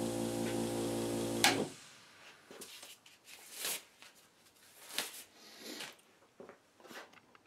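5-inch Harbor Freight bench grinder with brush wheels running with a steady electric hum, switched off with a click about a second and a half in. Then soft rustling and small snaps as nitrile gloves are pulled off.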